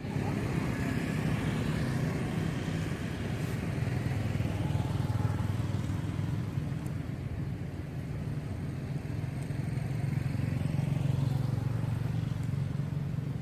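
Steady low rumble of a motor engine running, swelling slightly twice.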